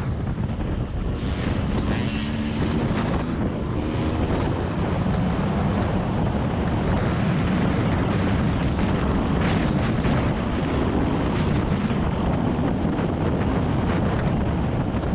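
Off-road vehicle driving steadily, its engine faint under heavy wind buffeting on the microphone.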